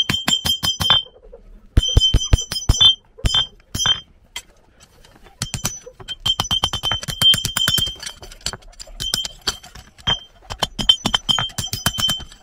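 A steel hammer striking a red-hot horseshoe on a blacksmith's anvil: quick runs of ringing blows, several a second, broken by short pauses as the shoe is forged.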